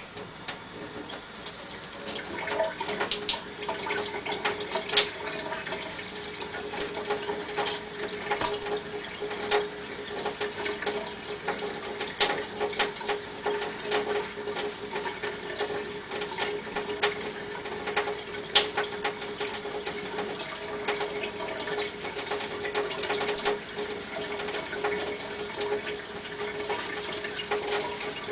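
Kitchen tap running into a stainless steel sink, with a steady tone through the flow of water. Water splashes irregularly as hands are rubbed under the stream.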